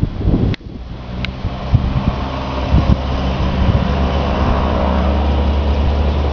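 Exhaust note of a 1993 Toyota Corolla's 4A-FE 1.6-litre inline-four running, growing louder over the first few seconds and then holding steady.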